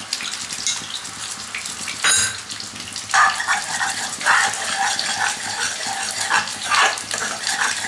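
Orange chicken sauce, thickened with cornflour slurry, sizzling in a wok on a gas flame, with a sharp clink about two seconds in. From about three seconds a spoon stirs and scrapes around the pan in quick, uneven strokes.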